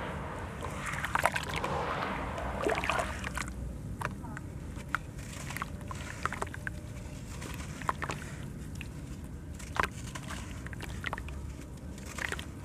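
Wet sand-cement chunk being squeezed and crumbled by hand into a tub of water: a sloshing swish of water for the first few seconds, then scattered crisp crackles and little plops as crumbs break off and drop into the water.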